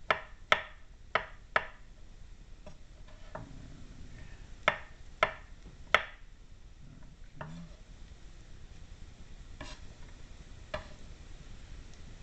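Knife chopping mushrooms on a cutting board: sharp single strokes about half a second apart in two short runs, near the start and around five seconds in, then a few lighter, more widely spaced strokes.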